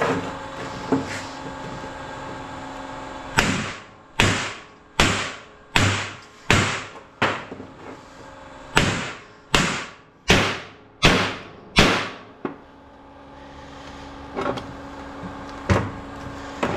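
A hammer striking steel about eleven times in quick succession, roughly one blow every three-quarters of a second with a short pause midway, each blow ringing briefly. The blows are meant to break a rusty welded seam that is not giving way.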